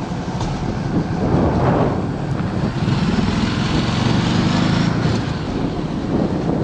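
Motorcycle riding along a mountain road: the engine running under way with heavy wind rush on the bike-mounted camera's microphone, the engine note growing stronger from about three seconds in.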